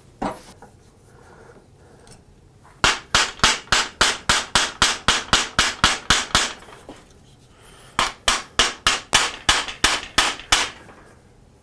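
Rapid hammer-like striking in two runs of quick sharp blows, about four or five a second, with a pause of about a second and a half between the runs.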